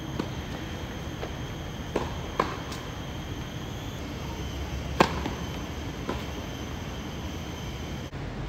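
Tennis ball struck by rackets during a rally and a serve: a handful of sharp pops, the loudest a serve about five seconds in, over a steady outdoor background hiss. The sound briefly drops out about eight seconds in.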